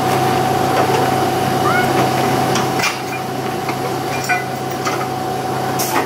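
Thamshavn Railway electric locomotive standing with a steady electrical hum from its equipment, with several sharp metallic knocks and clanks. The lower rumble drops back about three seconds in.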